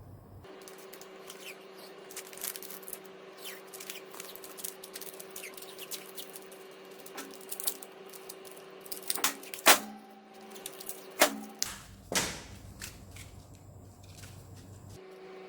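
Small hard objects being handled on a work surface: scattered clicks and taps, with a few louder sharp knocks in the second half, over a faint steady hum.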